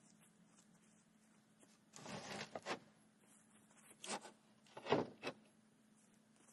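Weathered wooden boards scraping as they are slid over each other on top of concrete blocks, then knocking as they are set down. A scrape about two seconds in, then two knocks about a second apart, the second the loudest.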